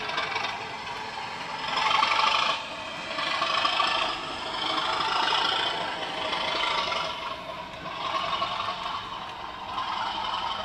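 Bachmann Class 55 'Deltic' model locomotive running under DCC sound. Its decoder plays diesel engine sound through the small onboard speaker, mixed with the rattle of the mechanism and wheels on the track. The sound swells louder and softer every second or two.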